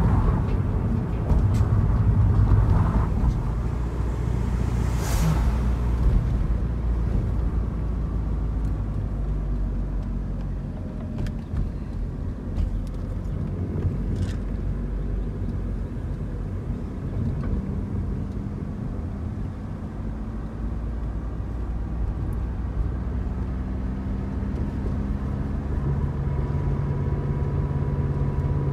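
A car driving, its engine and tyre road noise heard from inside the cabin. It is louder in the first few seconds as the tyres cross the steel grate deck of a drawbridge, with a short burst of noise about five seconds in.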